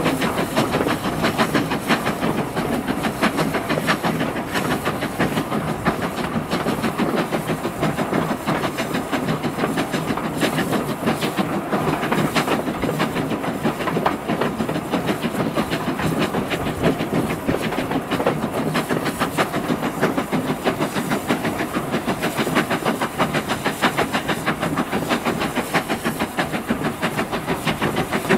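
Steam locomotive hauling a train at speed, heard from an open window of the coach behind it: a steady rapid beat of exhaust and wheels clicking over the rails, under a continuous rush of noise.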